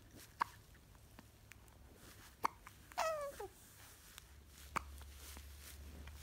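Hiccups: three short, sharp hiccups about two seconds apart, with a brief high squeak that falls in pitch just after the second.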